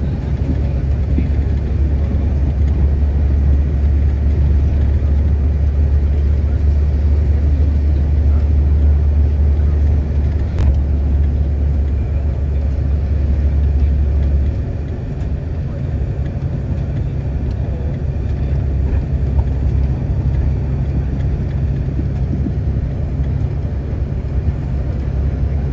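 Steady low rumble of a car driving, heard from inside the cabin: road and engine noise that eases a little past halfway.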